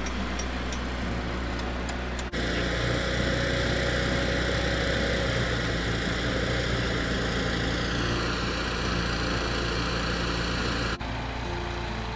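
An engine runs steadily at idle throughout. From about two seconds in until near the end, a louder steady hiss joins it, from spark-throwing metalwork on the trailer's leaf-spring hanger.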